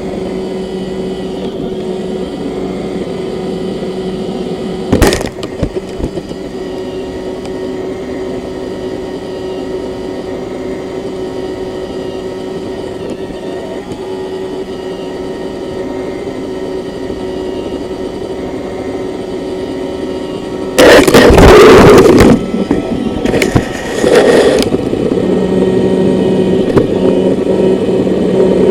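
Roomba robot vacuum running with a steady motor hum. There is a sharp knock about five seconds in, and a louder clattering stretch of about a second around twenty-one seconds in, followed by a shorter one.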